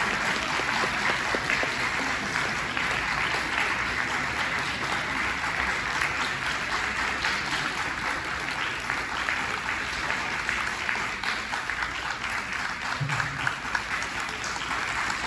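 Audience applauding steadily, many hands clapping at the end of an orchestral piece.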